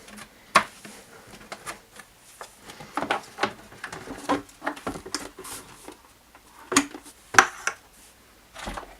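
Irregular clicks and knocks of hard plastic being handled as the top housing of a Henry vacuum cleaner is opened up.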